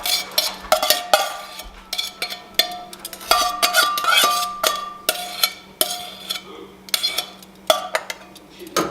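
A kitchen utensil knocking and scraping against a dish, tipping leftover marinade into the pot: irregular sharp clinks, two or three a second, each with a short ringing tone.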